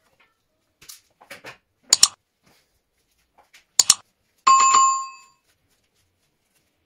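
Sharp clicks and snaps of a hand wire stripper working on blue electrical wire, loudest as a pair of snaps about two seconds in and another pair near four seconds. About four and a half seconds in comes a short bell-like metallic ring that dies away within a second.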